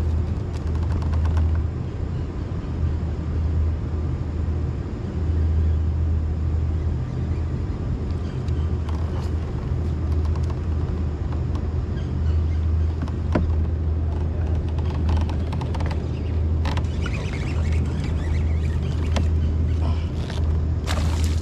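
A steady low rumble, with scattered clicks and brief scratchy noises in the last few seconds.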